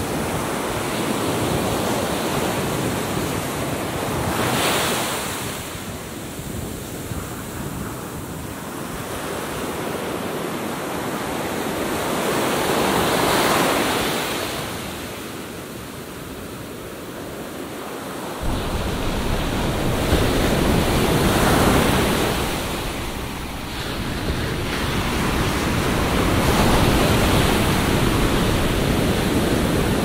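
Atlantic surf breaking on a sandy beach, the wash swelling and fading four times. About two-thirds of the way in, a low wind rumble on the microphone sets in and stays.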